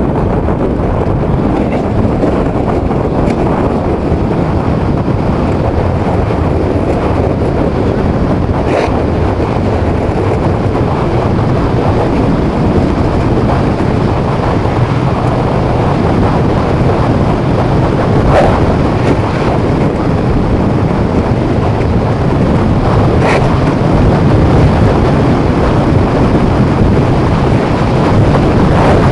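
Skeleton sled running at speed down an ice track: the steel runners scraping and rattling over the ice, mixed with wind rushing over a helmet-mounted camera's microphone. It is a steady, loud noise that grows a little louder over the last several seconds, with a few brief sharp clicks along the way.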